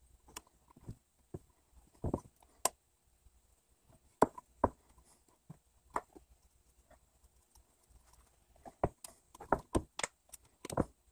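Scattered light knocks and clicks of metal parts being handled: a brake caliper slide pin with its rubber boot tapping and seating in the cast caliper bracket on a wooden bench. The clicks come in small irregular groups, busiest near the end.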